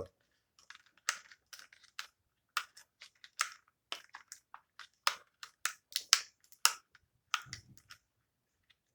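Quiet, irregular small plastic clicks and taps from handling a Bakugan toy figure, worked at to pop out its spring-loaded eye piece, with one duller knock near the end.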